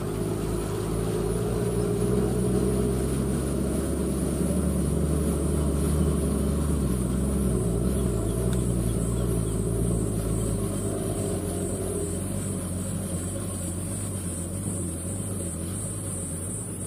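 Old Toyota dump truck loaded with rock, its engine running steadily under load as it drives away, growing fainter over the last few seconds. A steady high-pitched buzz sits above it throughout.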